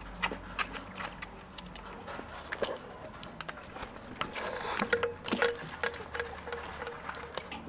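Quail dustbathing in a plastic tray of sand: irregular scratching, pecking and taps of claws and beaks against sand and plastic, with a brief rustling rush of scattered sand about four and a half seconds in.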